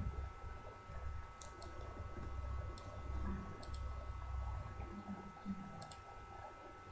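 Computer mouse clicking: a few short sharp clicks, some in quick pairs, about every second or two, over a faint low rumble and a thin steady hum.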